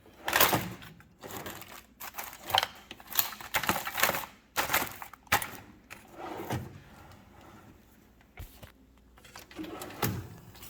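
Tools and small items being picked up and shifted in a metal toolbox drawer: irregular clicks, knocks and clinks with rustling, easing off near the end.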